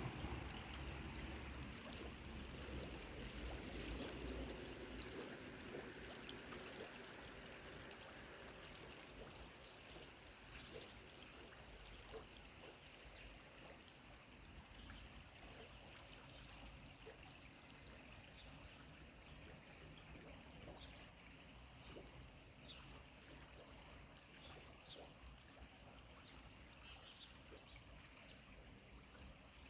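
Faint running water of a stream or river, a steady rushing hiss, with a few short, high, faint bird calls scattered through. A low rumble sits under it for the first few seconds.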